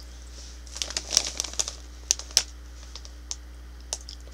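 A crinkly cheese curl bag handled and turned over in the hands: a run of crackles and rustles about a second in, then a few single crackles.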